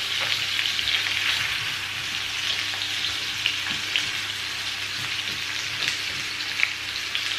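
Minced-beef meatballs sizzling steadily as they fry in hot oil in a frying pan, with a few small pops and light ticks.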